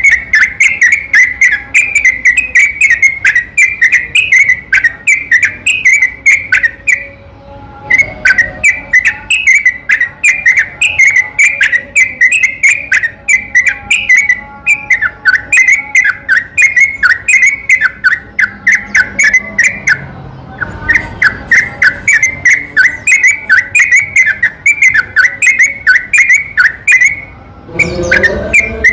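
Yellow-vented bulbul (trucukan) singing a long, fast run of short, whistled notes repeated several times a second, with a few brief breaks. This is a continuous 'gacor' song of the kind used as a lure recording to set other trucukan singing.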